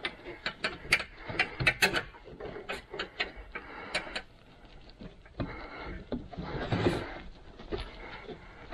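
Irregular clicks and knocks, then scraping and rubbing with a louder patch about seven seconds in, as a rear cradle lockout insert is worked by hand into the cradle bushing until it drops into place.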